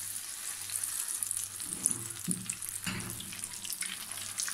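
Spoonfuls of squash-and-tuna fritter batter frying in hot oil in a pan: a steady sizzle with fine crackling.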